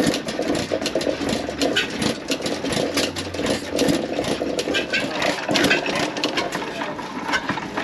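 Small antique stationary gas engine running, with a rapid, irregular run of sharp mechanical clicks over a steady hum.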